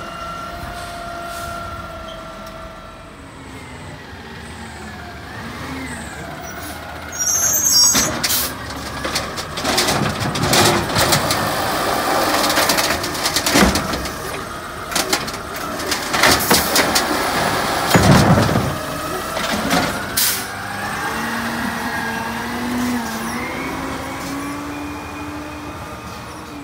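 Automated side-loader garbage truck collecting a recycling cart: the diesel engine and hydraulic arm whine for several seconds, then about twelve seconds of loud banging and clattering as the cart is tipped into the hopper. Near the end the engine note rises as the truck pulls away.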